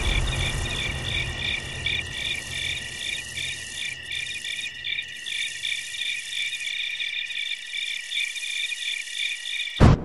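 Crickets chirping in a steady pulsing trill, with a low rumble fading away beneath them over the first several seconds. Just before the end the chirping cuts off abruptly with a short, sharp burst of sound.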